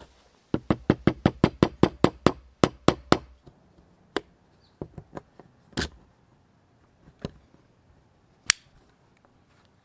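Metal parts of an old hand drill (steel bevel gears and shaft against the painted frame) being fitted together: a quick, even run of sharp clicks, about five a second, for a few seconds, then a handful of separate knocks, the loudest near the end.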